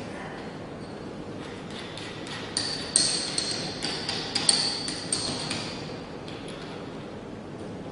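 Metal parts of the magnetic drill's twist-drill chuck setup being handled: a quick run of metallic clinks and knocks with a short ring, the loudest about three seconds and four and a half seconds in.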